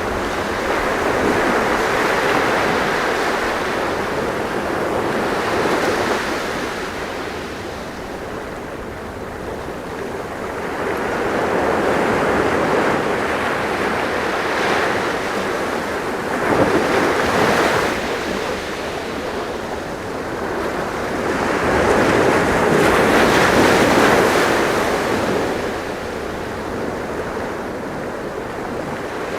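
Sea waves breaking and washing on the shore in slow, irregular surges, each swell rising and falling over several seconds, with some wind on the microphone.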